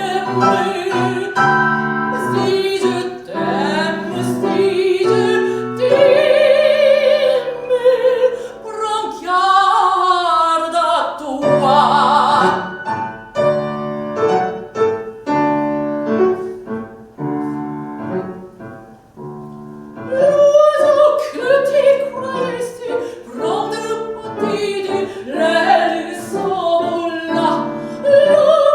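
Classical soprano singing with a wide vibrato over piano accompaniment. About halfway through, the voice rests for several seconds while the piano plays alone and more quietly, then the singing comes back in.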